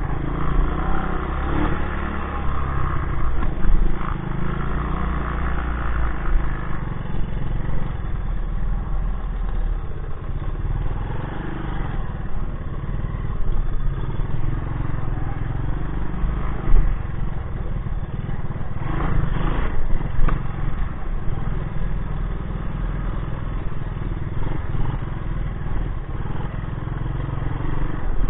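A 1984 Honda ATC200S three-wheeler's single-cylinder four-stroke engine running under changing throttle. The machine rattles and clatters over rough ground, with a few sharper jolts partway through.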